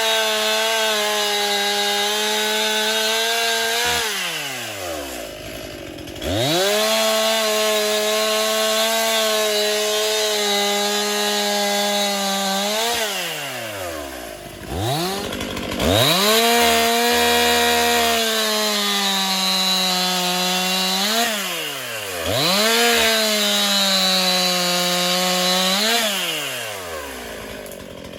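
Chainsaw held at full throttle in runs of several seconds while cutting wood, its engine note dropping toward idle and revving back up about four times between cuts.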